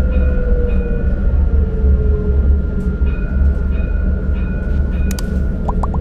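Dubai Tram running along its track, heard from inside the car: a steady low rumble with a faint whine that dips slightly in pitch and thin steady high tones. A few sharp clicks come near the end.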